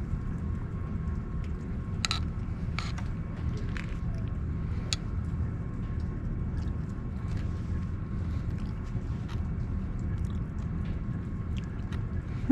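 Steady low background rumble with a few faint sharp clicks and taps, mostly in the first five seconds, as someone takes a bite of food and chews.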